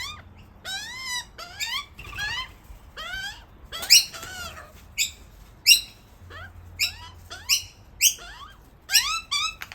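Fledgling Australian magpies begging for food: a run of about a dozen short, rising-and-falling squawking calls in quick succession, some much louder than others.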